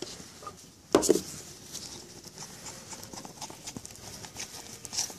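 Putty knife stirring wood flour into epoxy in a foam cup: soft scraping and light tapping against the cup, with one sharp knock about a second in.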